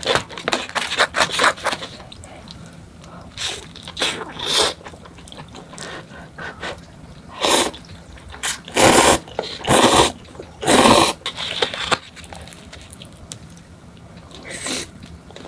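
Close-miked eating sounds: wet chewing and tearing of cheese-crust pizza, then four loud slurps of Buldak cup noodles about halfway through, and a bite of pizza near the end.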